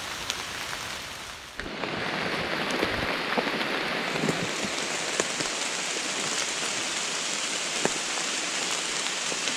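Steady rain falling on forest leaves, with scattered drips tapping. The sound of the rain changes abruptly about a second and a half in.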